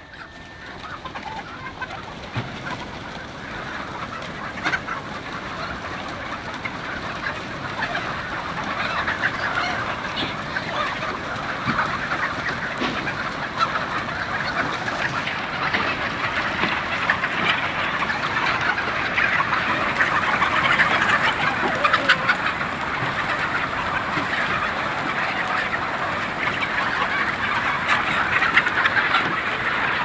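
A large flock of chickens clucking, a dense chatter of many birds at once that builds in loudness over the first ten seconds or so as more birds come out of the coop, then stays steady.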